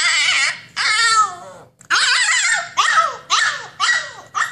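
Husky puppy howling and whining in high, wavering cries, crying to be let out of its pen: one long cry, then a falling one, then a string of shorter cries.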